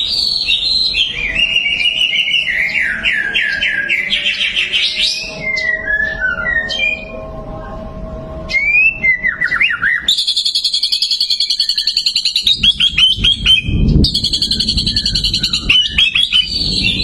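White-rumped shama (murai batu) singing a varied song of sliding whistles and chirps. After a short pause about halfway through, it breaks into fast, rattling trills.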